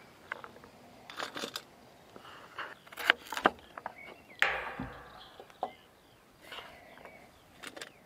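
A folding knife cuts through a firm orange vegetable against a wooden cutting board, making irregular knocks and crunches. The loudest knock comes about four and a half seconds in and rings briefly.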